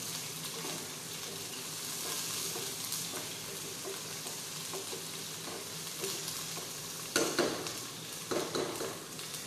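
Sliced onions sizzling steadily as they fry in hot oil in a pan, stirred with a spoon, with a few louder stirring noises near the end.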